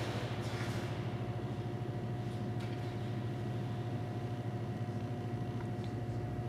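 Steady low mechanical hum of rink machinery with a few steady tones above it, and faint scrapes of skate blades on the ice now and then.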